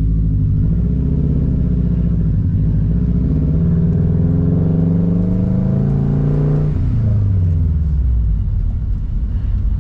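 2014 Subaru WRX STI's turbocharged 2.5-litre flat-four engine pulling under acceleration. Its note climbs steadily for about six seconds, then drops away near seven seconds in as the revs fall.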